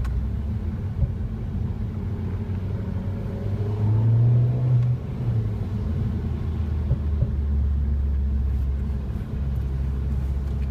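Mini Countryman S four-cylinder engine and sport exhaust running with a low, steady drone, rising in pitch and getting louder about four seconds in before easing off about a second later. A few short sharp pops stand out, typical of the sport exhaust's crackles.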